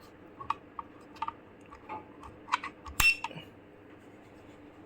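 Light clicks and taps from small hard parts being handled, with one sharper click that rings briefly about three seconds in, over a faint steady hum.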